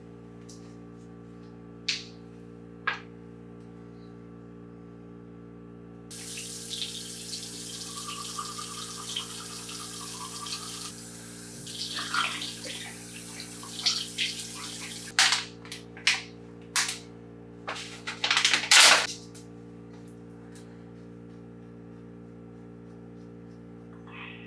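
Bathroom sink faucet turned on about six seconds in and running into the basin, with water splashing as it is scooped up to the face. The running stops after about nine seconds, followed by a few louder splashes, the loudest near the end of them. A steady low hum runs underneath, and there are a couple of small clicks before the water starts.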